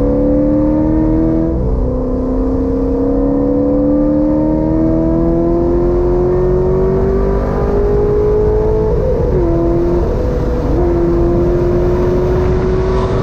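Corvette C6 Z06's 7.0-litre LS7 V8 pulling hard under full acceleration, its pitch climbing steadily. There is an upshift about a second and a half in, then a long climb in the next gear. Near nine seconds the note drops and wavers briefly before it pulls and rises again.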